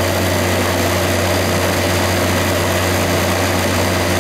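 Newly installed hermetic refrigeration compressor of a wine cooler's condensing unit running, with its condenser fan: a steady low hum under an even whir. It runs smoothly, working normally after the compressor change.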